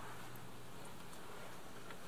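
Quiet outdoor background hiss with a steady low hum that fades out about two-thirds of a second in, and a few faint clicks.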